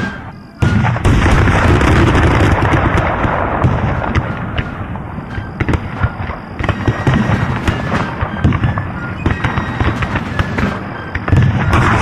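Battle sound effects: dense, crackling gunfire and booms over music. The sound drops briefly just after the start, then cuts back in loud.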